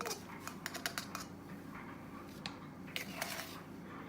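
Light clicks and taps of a measuring spoon scooping baking powder and knocking against its container: a quick run of clicks in the first second, then a few single taps.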